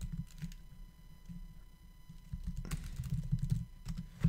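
Typing on a computer keyboard: irregular, sharp key clicks, with a quick run of keystrokes about two-thirds of the way through and a harder keypress near the end.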